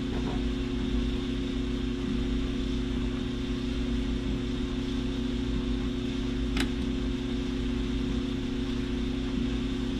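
Steady mechanical hum with several held tones, and a single light click about six and a half seconds in.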